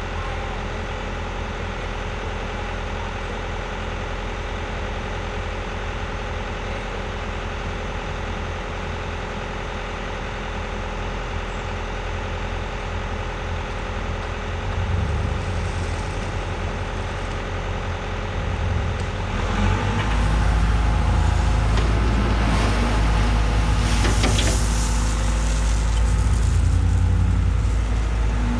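A construction machine's diesel engine running steadily at low revs, then revving up and working harder about two-thirds of the way through, with some clattering from the machine.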